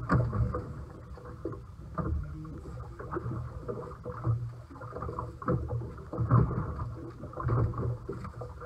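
Boat engine running steadily, with irregular knocks and clatter over it.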